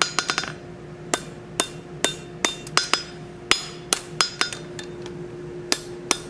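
Hand hammer striking a hot steel bar on an anvil in a steady rhythm of about two blows a second, each with a brief metallic ring, drawing the bar down between two shoulders. The blows stop briefly a little before the end, then resume.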